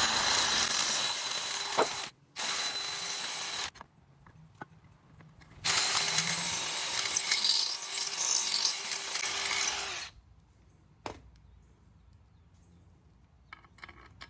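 Handheld power tool grinding away aluminum in short bursts: a run of about two seconds, a brief stop, a shorter run, then after a pause a longer run of about four seconds, each with a steady motor whine under the grinding noise. Metal is being taken down a little at a time to clear raised ridges. A single click follows once the tool stops.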